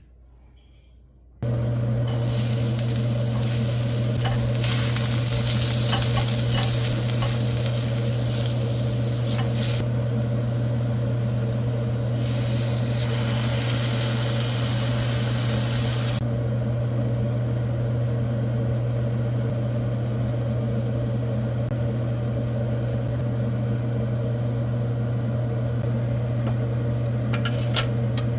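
Food sizzling and frying in a pan over a steady low hum, starting suddenly about a second in; the sizzle is strongest for the first half and then dies down, with a few light utensil clicks near the end.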